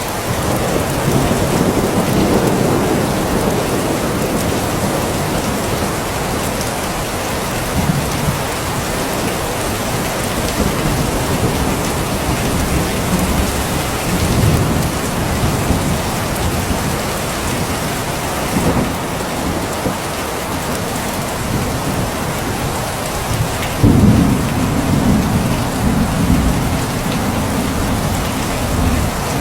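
Steady heavy rain falling, with rolls of thunder rumbling low beneath it; a stronger thunder roll starts suddenly near the end and goes on.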